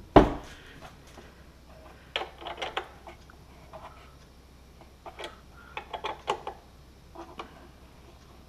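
A single loud knock as the panel is handled on the steel workbench, then scattered small clicks and rattles in short clusters as parts behind the panel are fitted and tightened by hand.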